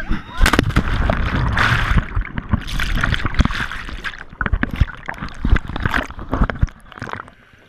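Splash of a person plunging feet-first off a pontoon boat's water slide into the lake about half a second in, followed by loud churning, bubbling water heard through the submerged camera, with many sharp clicks and knocks, dying away near the end.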